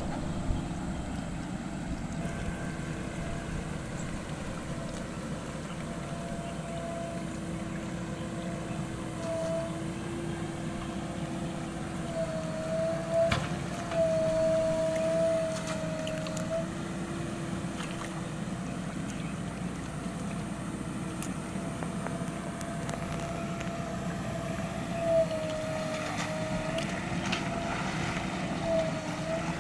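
Backhoe loader's diesel engine running steadily. Its pitch dips and recovers several times as the engine takes load, with a few sharp knocks.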